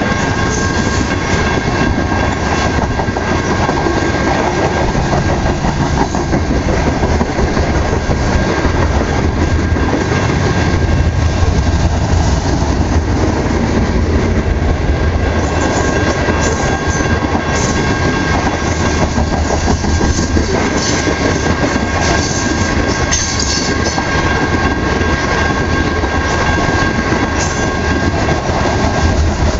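BNSF grain train's hopper cars rolling past, with a continuous rumble and wheels clattering over the rail joints. A few sharper clacks come in the second half.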